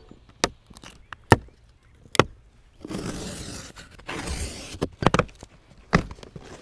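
Cardboard shipping box and packaging being opened and handled during the unboxing of a folding e-bike. A series of sharp knocks and clicks, with two longer scraping, rustling sweeps in the middle.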